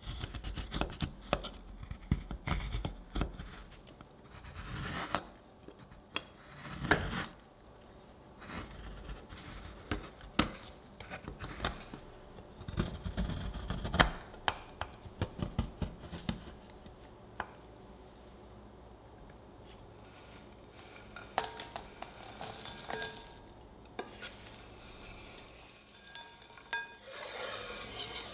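Chef's knife chopping dark chocolate on a wooden cutting board: repeated crisp cuts and knocks of the blade against the board, with rasping scrapes as the shavings are gathered, busiest in the first half and sparser later. Near the end, chopped chocolate slides off the board into a glass bowl.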